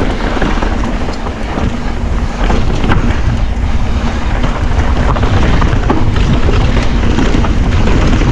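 Wind buffeting the action camera's microphone while a mountain bike descends a rocky trail: a steady rush with tyre noise and frequent short rattles and knocks from the bike. It gets louder about two and a half seconds in.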